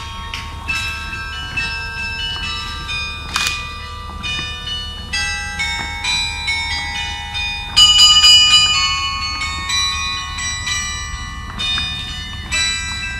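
Carillon bells playing a dance tune: many bell notes struck one after another, each ringing on, with a loud cluster of high notes about eight seconds in.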